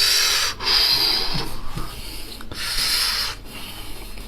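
Loud close-up eating noises from a spiced sheep's head: a series of hissing sucks, each half a second to a second long, with short breaks between them.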